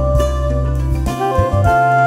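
Background music: an instrumental tune with held melody notes over a steady bass line.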